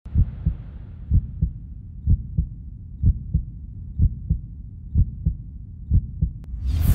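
Heartbeat sound effect: a steady lub-dub of paired low thumps, about one beat a second, seven beats in all. A rising whoosh comes near the end.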